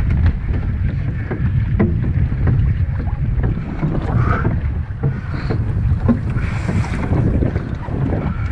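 Strong wind buffeting the microphone as a low steady rumble, with many short knocks and clatters from the small wooden sailing skiff's spars and rigging and the rustle of its lowered sailcloth being handled.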